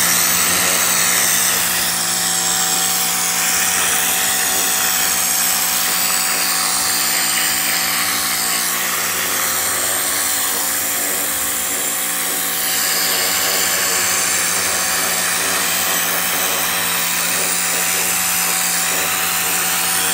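Hart 2000 PSI pressure washer running steadily, a constant hum under the hiss of its water jet being sprayed onto a carpet.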